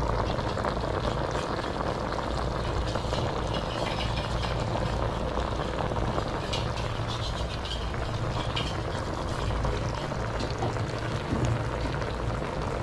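Turmeric coconut-milk gravy with snails bubbling at a steady simmer in a wok, with fine popping of bubbles over a steady low hum.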